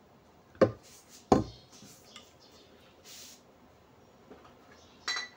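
Kitchenware knocking: two sharp knocks about a second in, a few small clicks and a short hiss, then a ringing clink of glass or metal near the end.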